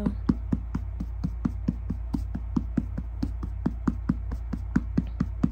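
A hand patting a baby's back in quick, even pats, about five a second, to burp her, over a steady low hum.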